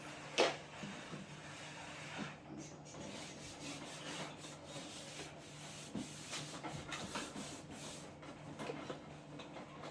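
Cloth wiping and scrubbing over refrigerator surfaces, an uneven scraping with scattered small knocks and a sharper knock about half a second in. A steady low hum runs underneath.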